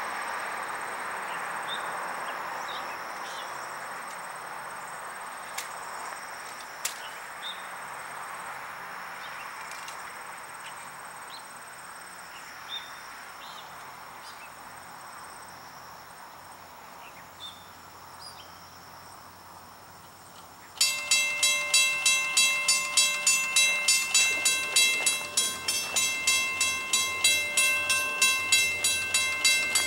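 A steady rushing noise slowly fades. About twenty seconds in, a railroad grade-crossing bell suddenly starts ringing in rapid, even strikes.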